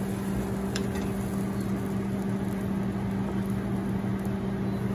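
Steady mechanical hum of a running kitchen appliance, with a faint tap about a second in as a wooden spatula stirs egg mixture in a cast iron skillet.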